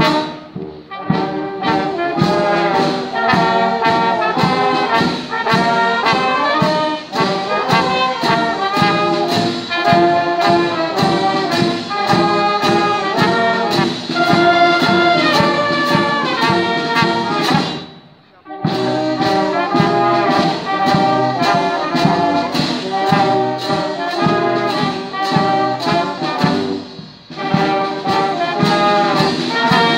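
Wind band of trumpets, trombones, saxophones and tuba playing a tune over a steady drum beat. The music stops briefly twice, about two-thirds of the way through and again near the end.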